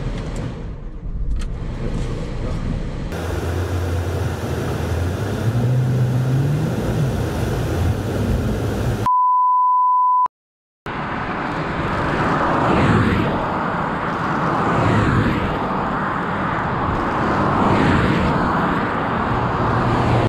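Vehicle driving noise with an engine rising in pitch, broken by a steady 1 kHz test-tone beep of about a second and a brief silence. After that comes the noise of a Renault Master van driving past on the circuit, swelling and falling.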